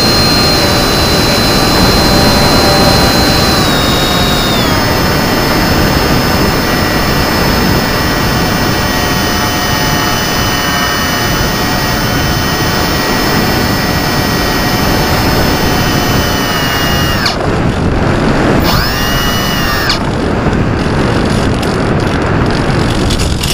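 Electric motor and propeller of an FPV flying wing whining in flight over loud wind rush. The motor pitch steps down about five seconds in, and about three-quarters through the wind noise drops away for a couple of seconds while the motor tone dips and comes back.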